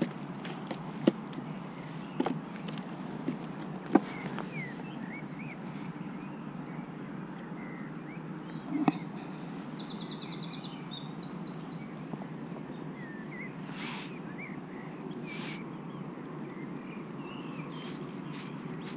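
Small birds chirping, with a quick trill about halfway through, over a steady outdoor background rush. A few sharp knocks and clicks, the loudest about four seconds in, come from the fish and landing net being handled on the wooden jetty.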